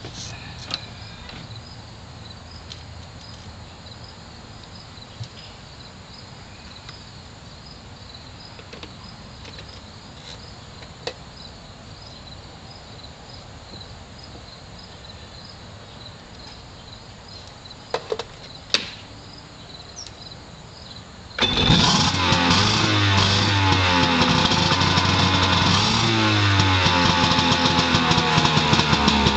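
Kawasaki 900 jet ski engine fired up out of the water: a few clicks over a quiet background, then about twenty seconds in the engine suddenly catches and runs loudly, its pitch rising and falling as it is revved.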